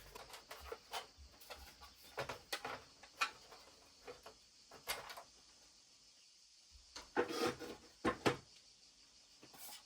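Scattered clicks, knocks and light scrapes of plastic being handled: the printer-bay cover of a Sharp MZ-711 home computer. A short lull falls in the middle, and the loudest knocks come near the end.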